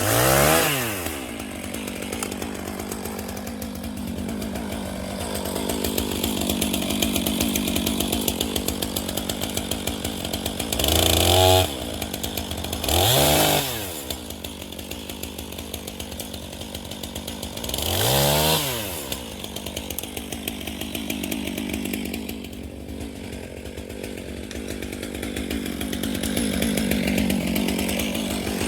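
Stihl two-stroke chainsaw idling between short throttle revs, its pitch rising and falling about three times, with a brief loud, steady full-throttle stretch a little before the middle.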